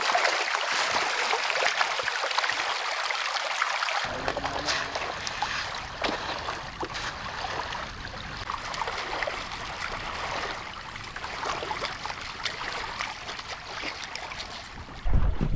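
Shallow creek running and trickling, a steady rush of water; a deeper low rumble joins it about four seconds in.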